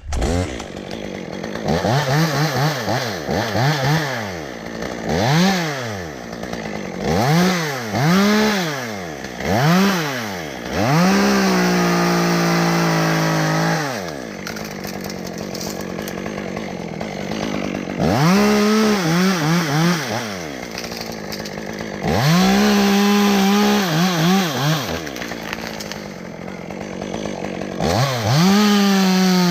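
Chainsaw in a tree, revving up and down in quick throttle blips, then held at full throttle for a few seconds at a time while cutting into hickory limbs.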